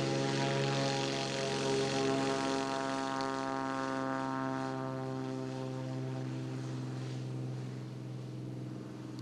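Small single-engine propeller plane's engine at takeoff power, a steady drone that slowly fades as the plane climbs away.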